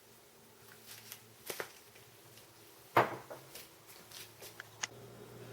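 Kitchen handling sounds while the sauce ingredients are measured out: scattered light clicks and ticks of a spoon and bottles, with one sharp tap about three seconds in, over a faint steady hum.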